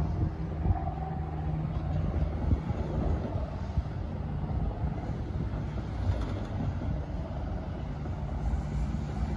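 NJ Transit train led by an ALP-45DP locomotive running along the track: a steady low rumble of wheels and traction with many short knocks from the rails.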